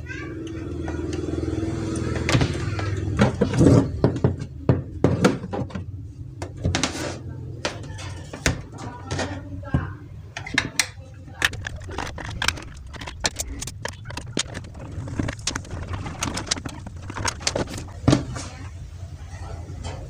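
Plastic housing of a handheld vacuum cleaner being handled and taken apart with a screwdriver: many irregular clicks, taps and knocks of hard plastic and the tool, over a steady low hum.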